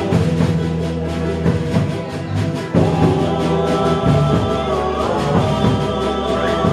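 Music: a song with sustained melodic notes over a steady drum beat.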